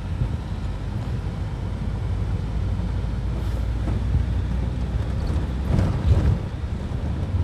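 Steady low rumble of a car driving on a wet road, heard inside the cabin. An oncoming car swishes past about six seconds in.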